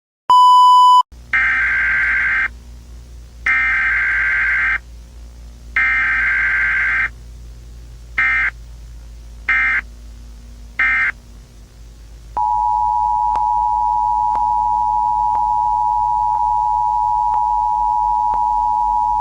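Emergency Alert System tones. A short loud beep is followed by three long bursts of buzzing digital SAME header data, each a little over a second long, then three brief data bursts. From about twelve seconds in, the steady two-tone EAS attention signal sounds.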